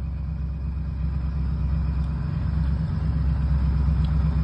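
A low, steady rumble that grows slowly louder; no gunshot or blast is heard.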